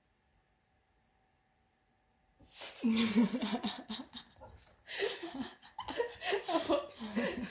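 A woman laughing loudly in several bouts, starting about two and a half seconds in. Before that there is near quiet with a faint steady hum.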